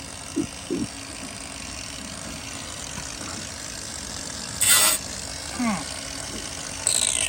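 Shop background hum, then a short loud burst of hiss about two-thirds through. Near the end a power cutting tool starts its high whine, which falls in pitch as it works on the Nova's rusted sheet metal.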